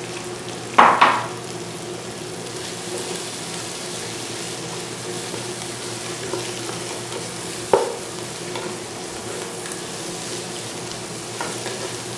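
Onion-tomato masala with mint leaves frying in a non-stick pot, sizzling steadily while a wooden spatula stirs it. There are two sharper knocks or scrapes of the spatula, a loud one about a second in and a smaller one near eight seconds.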